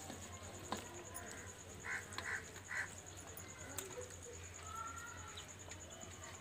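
Faint outdoor background of birds calling: three short calls about two seconds in and a longer one near the end. Occasional small clicks come from fingers tearing roti on a steel plate.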